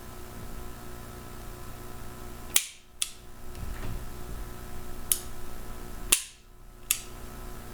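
Five sharp metallic clicks from the action of a Warnant revolver in .44 S&W Russian as it is handled and worked. The loudest come about two and a half and six seconds in, each followed a moment later by a softer click.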